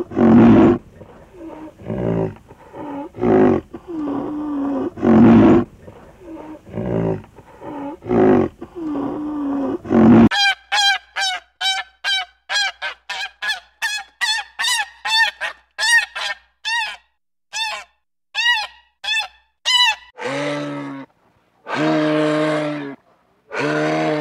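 Animal calls from different animals, one after another. First comes a run of low, repeated calls about a second apart. About ten seconds in there is a quick series of short, high calls, two or three a second. Long, low calls follow near the end.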